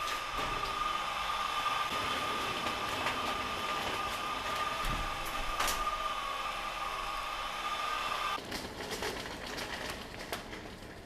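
A steady mechanical whine over a noisy hum, with a few sharp clicks, cutting off suddenly about eight seconds in.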